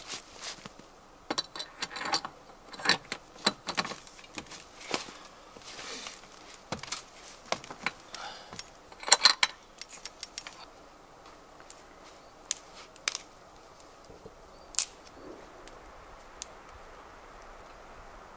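Telescopic aluminium ladder clicking and clanking, metal on metal, as it is set up and hooked onto the roof-top tent's base. A rapid run of sharp clicks lasts about ten seconds, with the loudest clatter about nine seconds in, then a few scattered clicks.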